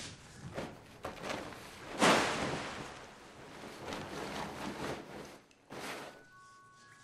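Large plastic sheet crinkling and rustling as it is grabbed and yanked down, with a loud rush of crackling plastic about two seconds in that dies away over the next few seconds, and another brief rustle near the end.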